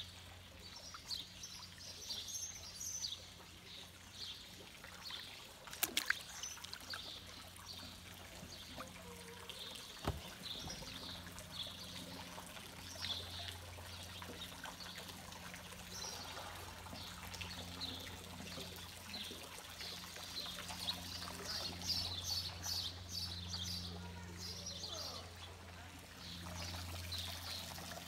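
Water trickling and splashing in many small, irregular drips and splashes as a kayak paddle dips and lifts, over a low steady hum. Two sharp clicks come about six and ten seconds in.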